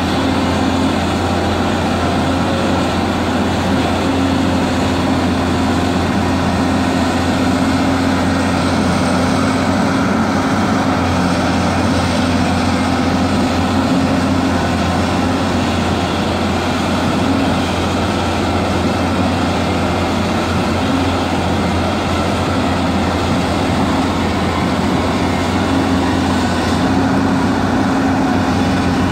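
Hyundai crawler excavator's diesel engine running steadily under load, heard close up, while the boom and bucket dig into a soil bank. It is a constant low hum with a slightly wavering mid-pitched tone.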